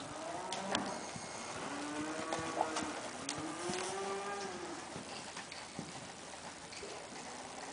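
Cattle mooing repeatedly: several long calls that rise and fall in pitch, some overlapping, with a few sharp clicks and knocks between them.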